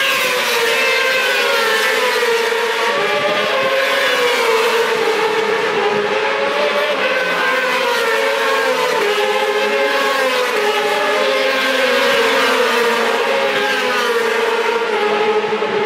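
Several racing motorcycles running at high revs on the circuit, their engine notes overlapping and rising and falling in pitch as they come past.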